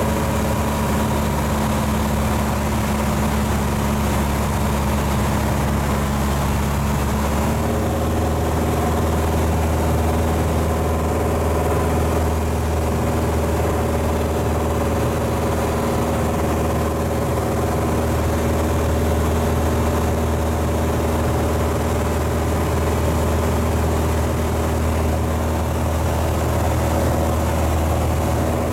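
Piper PA-28 Cadet's four-cylinder Lycoming engine and propeller running steadily on final approach, heard from inside the cockpit as a constant drone. The engine note shifts slightly about seven seconds in.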